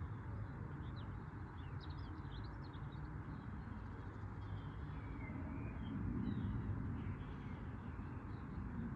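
Small birds chirping in short, quick calls over a steady low rumble.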